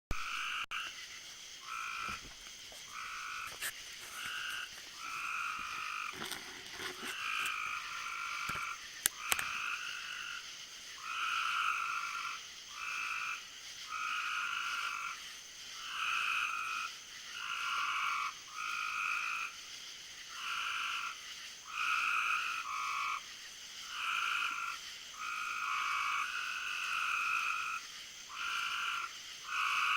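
Frogs calling in a steady chorus, short calls repeating about once a second, over a steady high-pitched hum. Two sharp clicks about nine seconds in.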